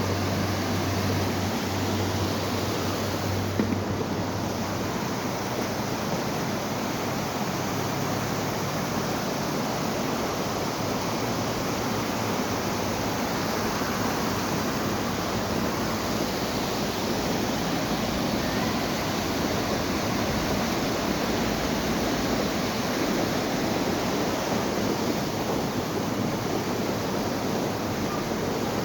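River water rushing steadily in an even hiss. A low engine-like hum is heard alongside it at first and fades out about four seconds in.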